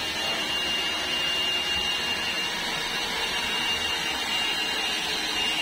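Hand-held hair dryer blowing steadily: a continuous rush of air with a thin high whine.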